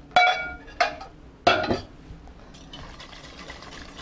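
Stainless steel pots clinking three times with a short metallic ring, as a saucepan is tipped against the rim of a stockpot to pour in stock. After that, a faint steady sound of stock pouring into the pot.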